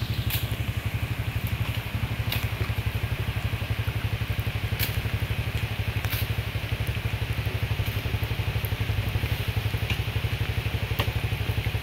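A nearby vehicle engine idling with a steady, fast low pulse, over a light hiss, with a few sharp knocks every couple of seconds.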